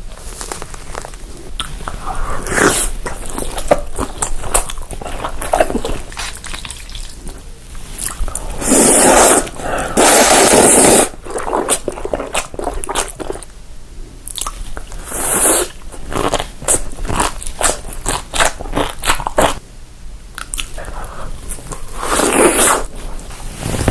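Close-miked eating: repeated crisp bites and chewing of crunchy food, with wet mouth sounds. A few longer, louder noisy stretches stand out, the loudest about nine to eleven seconds in.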